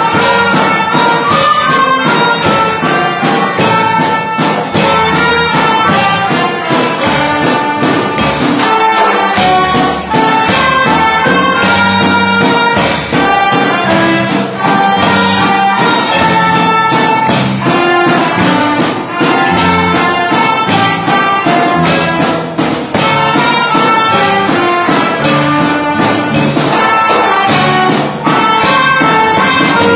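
A student ensemble of recorders, melodicas and electronic keyboards playing a regional son, with sustained melody notes over a steady beat.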